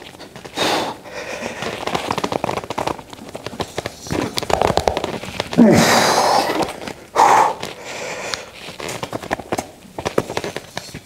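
A lifter's forceful breaths and effort grunts while straining through a heavy set of skull crushers (French press). The set is pushed to failure. Several separate breaths, with a grunt that drops in pitch about six seconds in.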